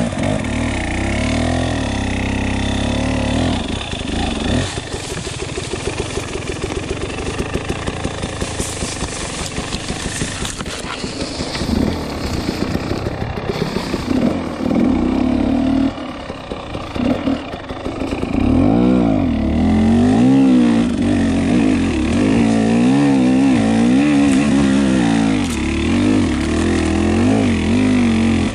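KTM 300 EXC single-cylinder two-stroke enduro engine on the move, its revs rising and falling with the throttle. It chugs at low revs for several seconds early in the clip, then revs up and down more busily in the second half.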